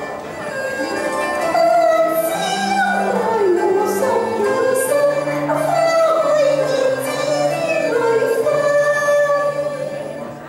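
A woman singing a melodic line into a microphone over instrumental accompaniment, her voice gliding between held notes.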